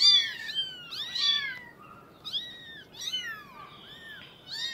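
Several 17-day-old kittens mewing: high, thin calls that rise and fall, one after another about every half second and often overlapping.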